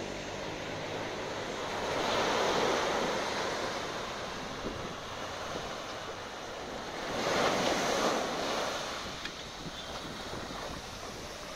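Small waves breaking on a sandy beach: two washes of surf, swelling about two seconds in and again about seven seconds in.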